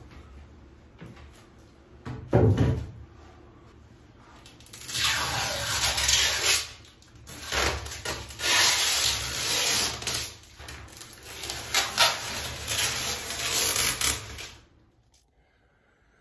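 Plastic sheeting rustling in repeated bursts as plastic-wrapped clamping boards are pulled off a freshly glued plywood bulkhead, with a single knock about two and a half seconds in. The noise stops suddenly near the end.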